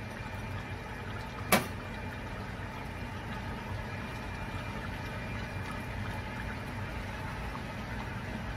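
A steady low hum runs throughout, with a single sharp click about a second and a half in.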